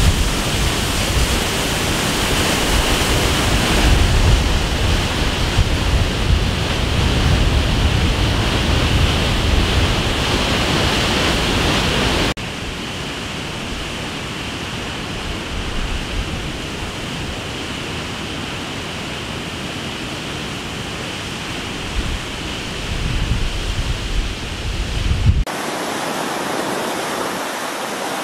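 Roar of floodwater from a dam's flood-control release, a huge muddy jet churning and crashing into the outlet basin, with a deep rumble under a steady rush. About halfway it drops abruptly to a lower level. Near the end the deep rumble falls away, leaving an even rushing of turbulent water down a concrete channel.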